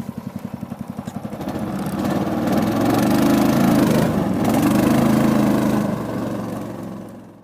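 A vehicle engine idling with an even putter, then speeding up from about a second and a half in and running steadily at higher revs before easing off near the end.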